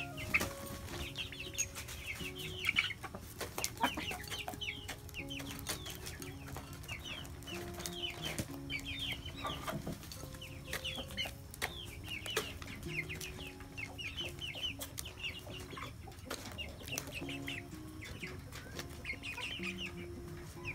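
Chickens around a feed basket: high, quick peeping chirps in clusters, with scattered light ticks of pecking. Faint music runs underneath.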